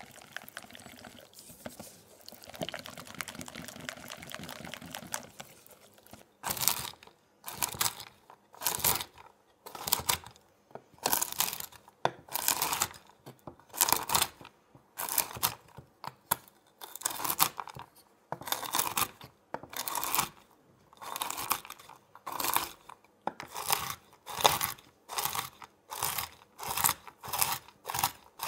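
A wire whisk stirs flour into a thick batter in a glass bowl, a soft steady scraping. About six seconds in, a chef's knife starts chopping pecan nuts on a wooden cutting board: crunching strokes about once a second that come faster near the end.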